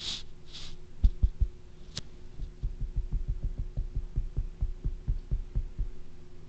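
Soft, low thumps in a quick, uneven rhythm, about four a second, starting about a second in, the first few louder. A faint steady hum lies under them, and there is a short breathy rush at the very start.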